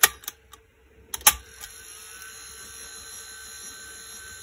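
Phonotrix 88 pocket reel-to-reel tape recorder: its transport keys click several times in the first second and a half, the loudest about a second in. Its motor then turns the reels with a steady faint whine.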